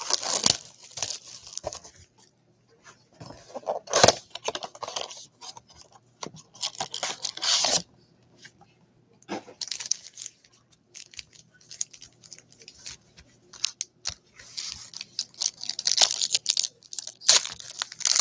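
A Panini Absolute Baseball card box and its foil card packs being torn open and crinkled by hand. The tearing and rustling comes in repeated bursts, with the longest stretch near the end.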